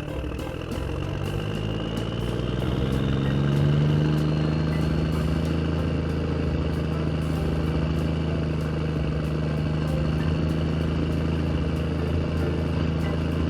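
A motor running, rising in pitch over the first few seconds and then holding steady, with faint regular clicking.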